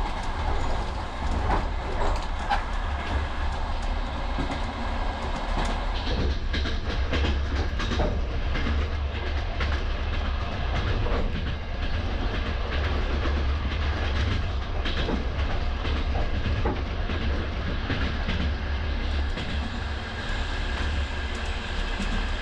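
An old Russian compartment sleeping car running at night, heard from inside the compartment: a steady low rumble with many clicks and rattles, busiest in the middle.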